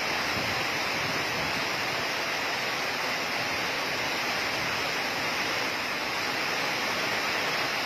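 Steady, unbroken rush of flash-flood water: fast-flowing floodwater streaming across a street under heavy rain.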